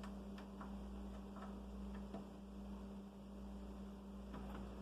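Steady electrical hum with a few faint clicks and taps as a notched plastic connector is handled and fitted onto its pins.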